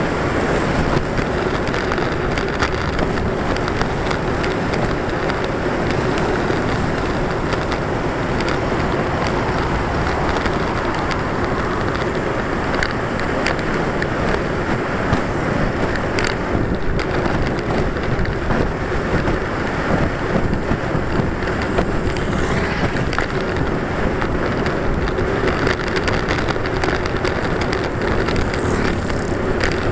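Steady rush of wind on the microphone of a camera mounted on a moving bicycle, mixed with road noise, with a few faint clicks.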